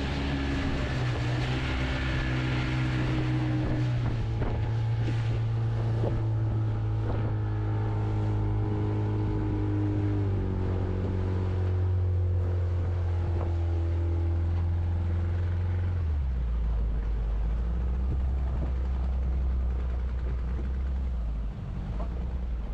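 Fishing boat's motor running steadily under way, its note dropping to a lower, slower pitch about two-thirds of the way through as it is throttled back, with a brief dip in level near the end.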